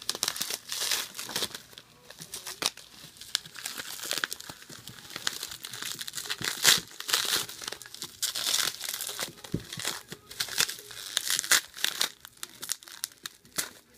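Bubble wrap crinkling and rustling in irregular bursts as hands pull it off a boxed CD album, with a few sharper crackles.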